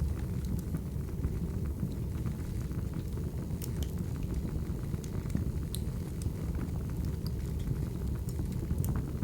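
Recorded wood-fire ambience: a steady low rumble of burning logs with scattered crackles and a few sharp pops.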